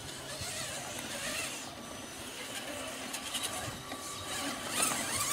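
Whir of the small electric motors and gearboxes of radio-controlled scale trucks crawling over a dirt course, with indistinct voices in the background.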